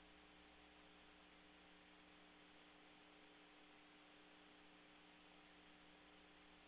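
Near silence: a faint, steady hum with a soft hiss.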